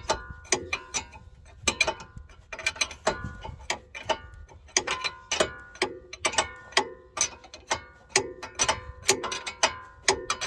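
Ratcheting hand tool clicking in uneven runs of a few clicks a second, with light metallic ringing, as the new ball joint nut is tightened by hand.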